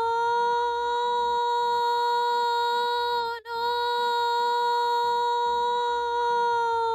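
A woman's voice holding a long, steady "nooo" in imitation of a fire-truck siren. The note breaks once about three and a half seconds in with a quick dip in pitch, then swoops back up and holds again.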